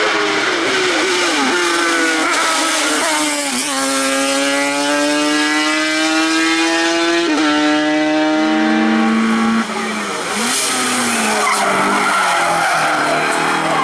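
Single-seater race car engine at full throttle, accelerating uphill and rising in pitch through two upshifts. After that, a rally hatchback's engine revs as its tyres squeal sliding through a tight bend.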